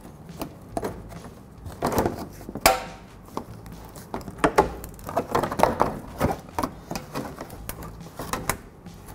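Irregular clicks, knocks and rattles of a clip tool and plastic parts as a body clip is pried out of the plastic undercarriage splash shield, with one ringing metallic clink about three seconds in.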